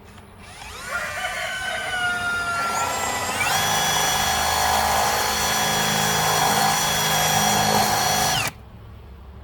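Power drill boring a hole through the wooden wall of a beehive super. The motor whine starts about a second in, rises in pitch as the drill speeds up near three seconds, runs steadily, then stops suddenly near the end.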